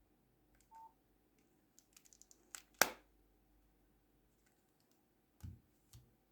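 Faint scattered clicks and taps: a brief soft beep under a second in, a quick run of small clicks about two seconds in, a sharper click near three seconds, and two dull thumps near the end.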